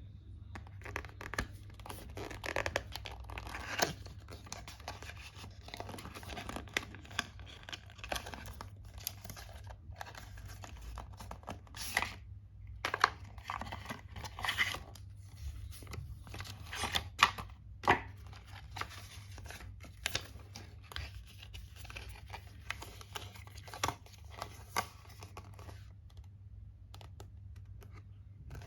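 AirTag packaging being torn open and handled: paper and wrapping tearing and crinkling in irregular rustles, with many small clicks and a few sharper snaps over a steady low hum.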